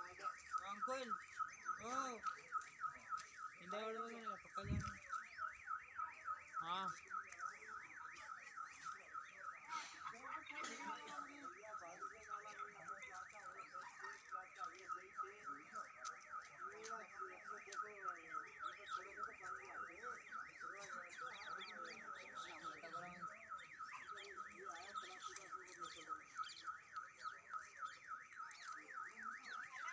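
A high chirping tone repeating rapidly and evenly, about three to four times a second, without a break.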